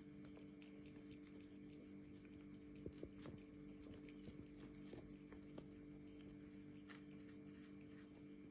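Near silence: a faint steady hum of several low tones, with scattered soft clicks.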